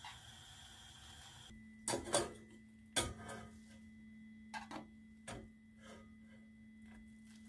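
Metal tongs clinking against a saucepan and a stainless mesh strainer as cooked soba noodles are lifted out of the pot: several short sharp clinks, the loudest two near the start, over a steady low hum.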